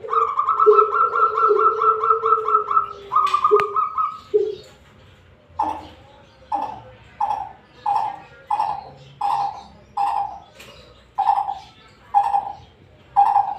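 Coucal (bubut) calling: a fast run of rapid repeated notes for about four seconds, then a slower, evenly paced series of about a dozen separate hoots.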